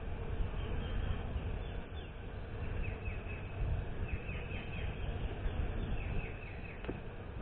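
Steady hum of a honeybee colony from an open hive box crowded with bees, with a bird singing in quick runs of short falling chirps several times over it. One sharp knock near the end as a wooden frame is handled.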